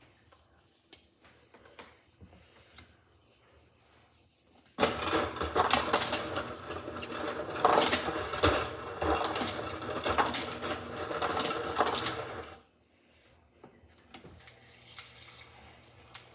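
Dense clattering and scraping from handling the slime-making things, kitchen utensils and containers of cornstarch slime. It starts abruptly about five seconds in and stops suddenly about eight seconds later. Faint scattered clicks come before and after.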